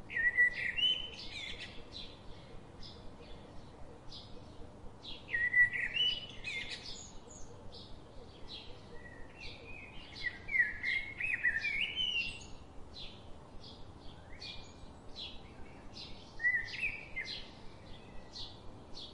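Birds calling: four loud bursts of warbled notes stepping up and down in pitch, over a steady run of short high chirps, two or three a second.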